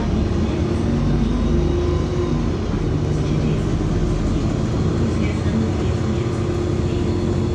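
LiAZ-5292.65 city bus driving, heard from inside the passenger cabin: a steady diesel engine drone with road and tyre noise, its pitch shifting slightly a few times.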